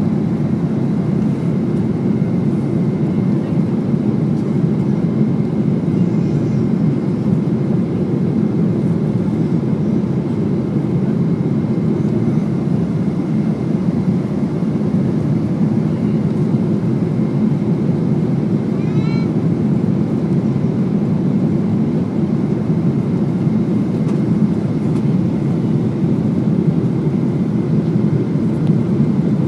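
Steady cabin roar of a Boeing 777-200ER on approach with its flaps extended: engine and airflow noise heard from inside the passenger cabin.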